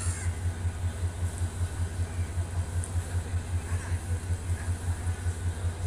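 An engine idling with a low, even throb that pulses about five times a second.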